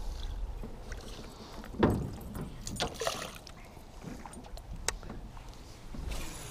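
Handling sounds of a baitcasting rod and reel in a small boat: a low steady rumble, water swishing at the boatside, a thud about two seconds in and a few sharp clicks.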